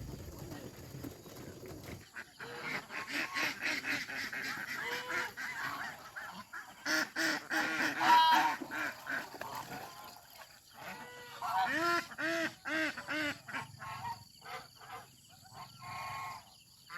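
Geese honking over and over, several birds calling over one another in short calls, loudest about eight seconds in.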